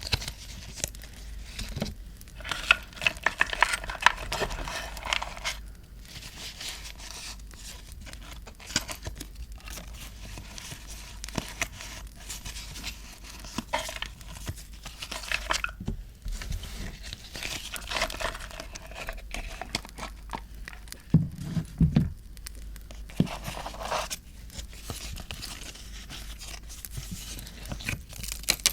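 Paper being handled close up: rustling, crinkling and tearing in irregular stretches, with scattered sharp taps and clicks and a couple of dull knocks a little past the middle.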